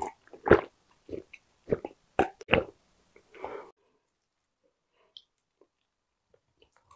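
Close-miked gulps of water being swallowed from a glass, five or six in quick succession about half a second apart over the first two and a half seconds.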